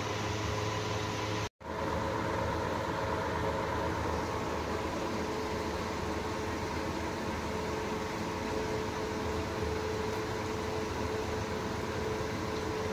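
Evaporative air cooler running steadily, its fan giving a constant rushing noise with a faint hum. The sound cuts out completely for a split second about a second and a half in.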